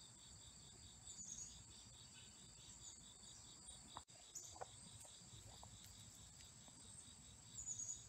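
Steady, high-pitched chorus of insects in summer woodland, with a regular pulsing trill under a continuous high hiss. The sound drops out briefly about four seconds in, and a few faint short chirps follow.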